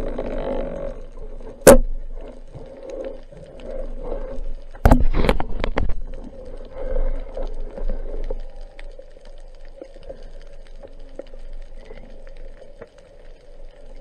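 Muffled underwater sound heard from a camera on a speargun held below the surface: a dull steady murmur of water with a sharp click about two seconds in and a quick cluster of knocks around five seconds, growing quieter in the second half.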